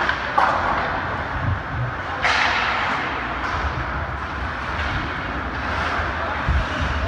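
Game sounds in an arena: a steady wash of crowd and rink noise with two sharp hits, a small one just under half a second in and a louder, ringing one about two seconds in, and a few dull thuds later on.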